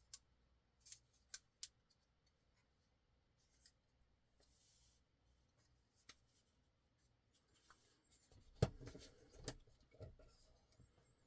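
Parts of a Spyderco Yojimbo folding knife being handled and fitted back together: faint, scattered light clicks and taps, with two louder knocks near the end.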